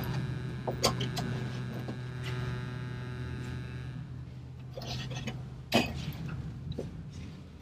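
Scattered clicks and knocks from the manual window winder and metal inside an old Toyota Corolla DX's door as it is worked by hand, with a sharper click near six seconds in. A steady hum runs underneath and stops about four seconds in.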